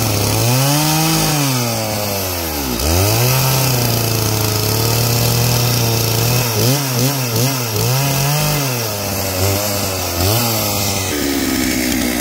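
Stihl two-stroke chainsaw being revved: the engine speed rises and falls several times, holds high for a few seconds, then gives a run of quick throttle blips. It drops back to idle about a second before the end.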